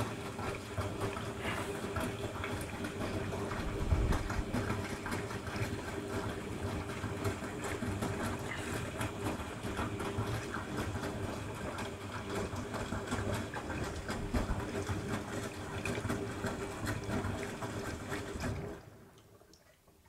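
Currys Essentials washing machine drum tumbling a wet load: water sloshing and splashing over a steady hum, stopping suddenly near the end as the drum halts.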